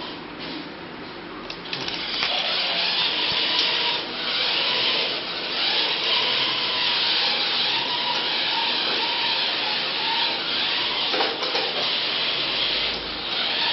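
Small four-wheel-drive robot's geared DC motors running as it drives over a marble floor: a steady whirring hiss that comes up about two seconds in, with a faint thin whine through the middle.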